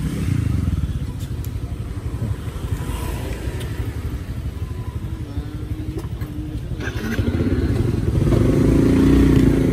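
Motorbike engine running under a rider carrying a pillion passenger, a steady low rumble that grows louder about eight seconds in as the bike picks up speed.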